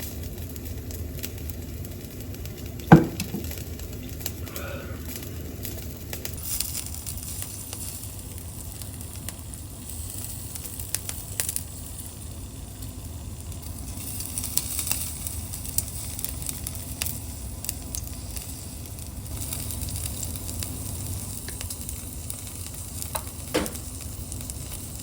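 Pork and onion skewers sizzling on an electric shichirin grill, with small crackles; the sizzle grows brighter about six seconds in. Two sharp knocks, about three seconds in and near the end.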